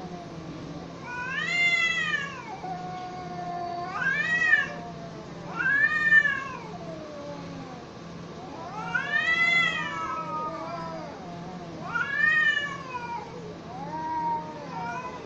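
Two domestic cats caterwauling at each other in a face-off: about six long, loud yowls that rise and then fall in pitch, a couple of seconds apart, with lower drawn-out moans between them. These are the threat yowls of a standoff before a cat fight.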